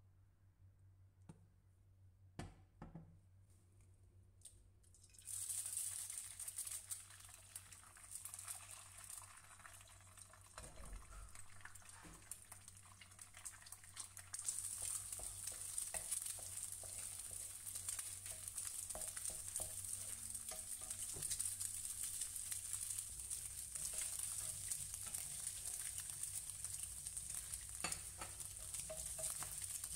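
An egg frying in hot cooking oil in a frying pan. It is quiet at first with a few light clicks, then the sizzling starts suddenly about five seconds in and grows louder about halfway. Near the end a wooden spatula stirs and scrapes in the pan.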